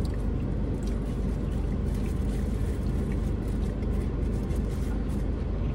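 Car engine idling, a steady low hum heard inside the cabin.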